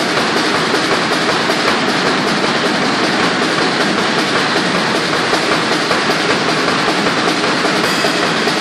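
Four performers imitating a running train with their hands on a cloth-covered tabletop: a steady, dense, rapid rustling chug.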